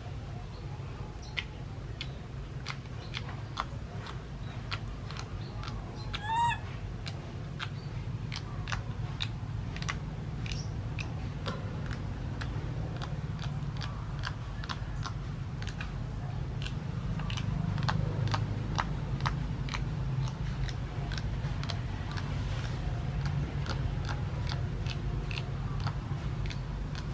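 A baby macaque gives one short squeak about six seconds in. Many scattered small clicks and a steady low hum run underneath.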